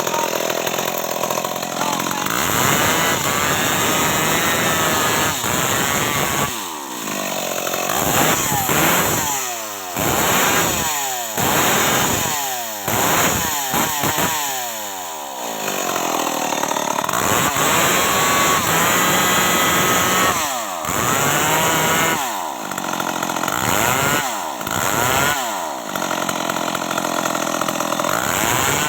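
Stihl MS 381 two-stroke chainsaw cutting timber, running at high revs for stretches with its engine speed repeatedly dropping and climbing again, about a dozen dips in all, mostly after the first few seconds.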